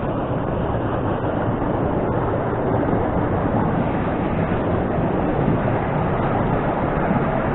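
Steady rush of river water where salmon are trying to jump upstream.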